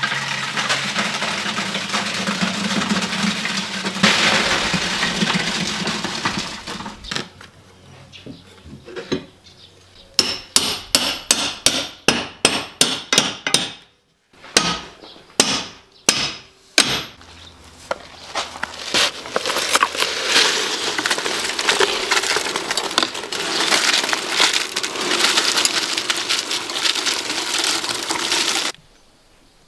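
Wet concrete poured and scraped from a bucket into the hollow cores of concrete blocks, a rough grainy rushing sound. In the middle, a quick run of sharp knocks, about three a second, then a few slower ones, then the pouring again until it cuts off near the end.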